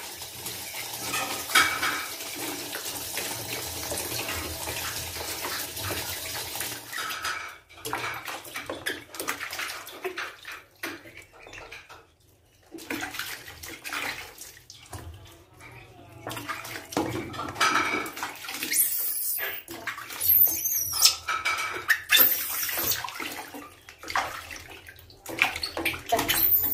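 Water splashing and sloshing in a plastic basin as a baby monkey is washed and rinsed by hand, steady at first and then in irregular splashes. A few brief high-pitched squeaks come about two-thirds of the way through.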